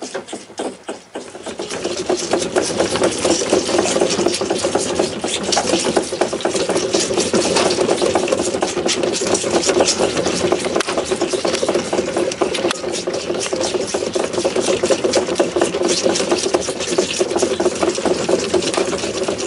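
Deer fawns sucking milk from rubber nipples on a wooden bottle feeder: a steady, busy stream of slurping and sucking with many small clicks, picking up and growing louder about a second and a half in.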